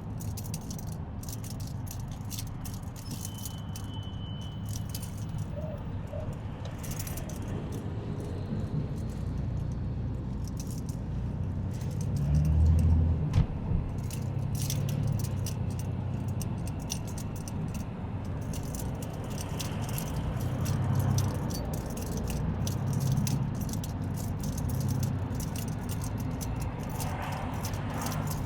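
Road noise inside a moving vehicle's cabin: a steady low rumble under a constant run of small clicks and rattles, with a louder low bump about twelve seconds in.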